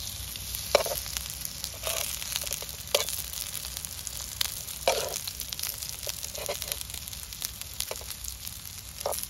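Masala-coated raw plantain slices sizzling as they shallow-fry in oil in a pan, with sharp taps and scrapes of a metal spatula and knife against the pan, about seven, as the slices are turned.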